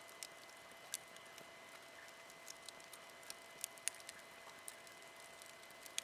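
Wood campfire crackling softly: scattered sharp pops and snaps at irregular intervals over a faint steady hiss.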